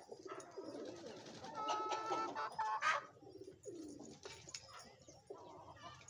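Pigeons cooing over and over, with a few higher, sharper bird calls about two to three seconds in.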